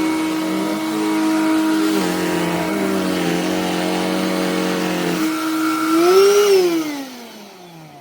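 Black+Decker Dustbuster cordless handheld pet vacuum running with a steady motor whine that shifts in pitch a few times, rises briefly about six seconds in, then is switched off and winds down in a long falling whine.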